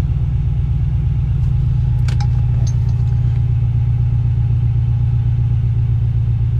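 Turbocharged 4.6-litre V8 of a 2007 Mustang GT idling with a steady low rumble, with a couple of faint clicks about two seconds in. The deep thump that the owner suspects is a header exhaust leak or a knock is hard to hear at this moment; he says it shows mainly when the engine is cold.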